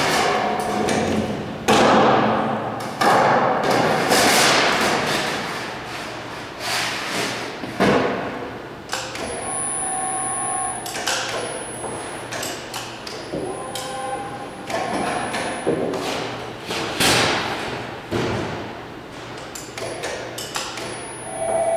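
An 8-foot sheet of 24-gauge metal being handled on a Cidan K25-30 folder: repeated thumps and knocks, with longer rattling swells of noise as the thin sheet flexes. A few short steady whines come now and then.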